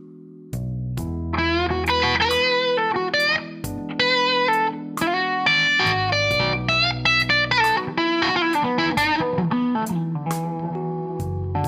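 Electric guitar with a Suhr SSV+ bridge humbucker playing a blues lead of bent and sliding single notes, over a backing track with drums and bass. The playing comes back in about half a second in after a brief gap.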